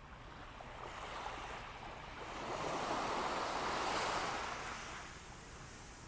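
Small waves washing up onto a sandy beach. One wash swells about halfway through and fades again.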